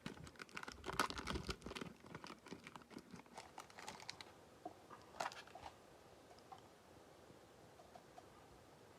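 Faint crinkling and crackling of a foil trading-card pack wrapper being handled and opened, with cards shuffled. The crackle is dense at first and thins out to a few scattered ticks about five seconds in.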